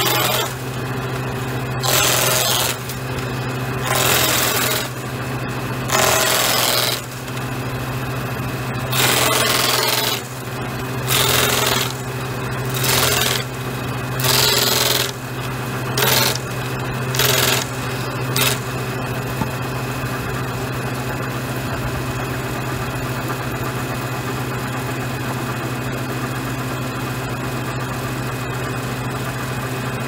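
Post-pointing machine's spinning cutter disc running with a steady hum while a round wooden post is turned against it. It gives about ten loud cutting bursts, one every second or two, as the point is shaped. The bursts stop about 18 seconds in, and the cutter then runs on unloaded.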